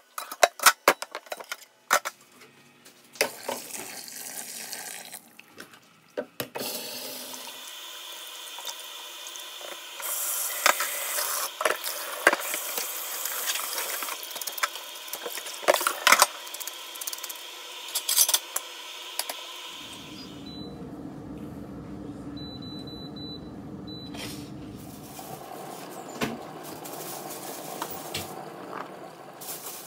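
A knife chopping raw chicken on a wooden cutting board, then a kitchen tap running while the chicken strips are rinsed and rubbed by hand in a plastic colander, with knocks from the handling. A few short high beeps come near the end.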